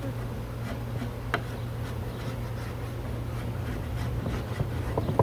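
Faint scraping and rubbing as bees and wax comb are cleared off the hive parts, with one sharp click about a second and a half in. A steady low hum from the bees runs underneath.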